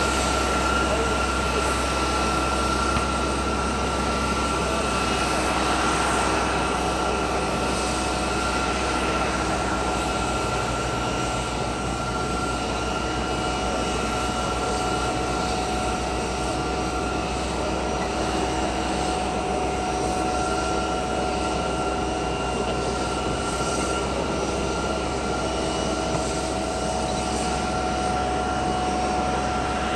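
Boeing 777-200 jet airliner giving a steady turbine whine, several high held tones over a broad rumble.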